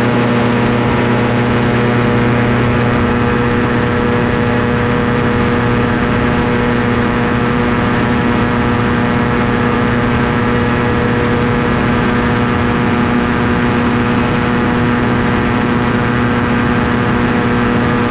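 Ultralight aircraft engine and propeller running steadily in cruise flight: a constant drone that holds one pitch, with a rushing noise of air over it.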